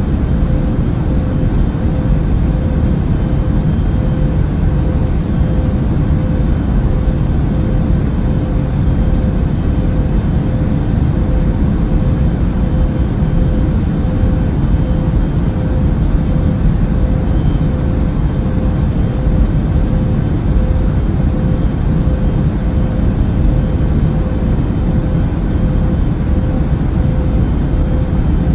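Airbus A380 cabin noise in cruise flight: a steady deep rush of airflow and engine noise with a faint steady hum above it, unchanging throughout.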